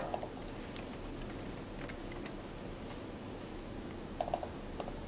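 A few faint computer keyboard keystrokes, scattered clicks over a steady low hiss.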